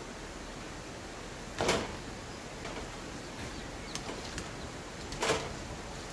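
Two short, sharp bangs about three and a half seconds apart, with a few lighter clicks between them, as a wooden board is fitted along the base of a chicken coop with a cordless drill.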